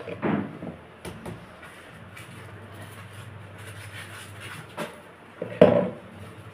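Kitchen handling sounds at a gas stove while rotis are cooked on a tawa: a few light clicks and taps, then a louder knock about five and a half seconds in, over a steady low hum.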